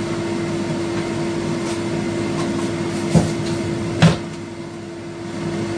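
A steady appliance hum with two sharp knocks a second apart a little past the middle, from things being handled in a kitchen; after the second knock the background drops a little for about a second.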